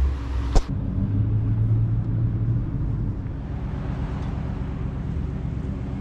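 A sharp click about half a second in, then a steady low rumble of a car driving, engine and road noise.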